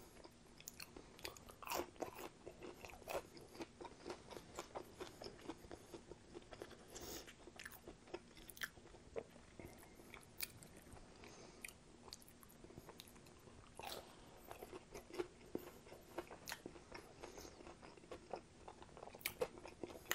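Close-miked chewing of battered fried chicken tenders, with many short, irregular crunches as the crisp coating is bitten and chewed.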